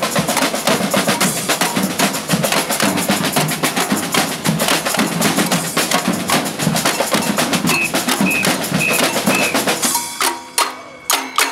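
Batucada percussion band of surdo bass drums, snare drums and tamborims playing a dense, fast marching rhythm. About ten seconds in the full band drops out, leaving a few separate ringing drum strokes.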